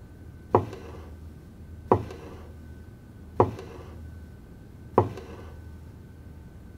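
Four sharp knocks, evenly spaced about a second and a half apart, each dying away in a short ring, over a faint steady hum.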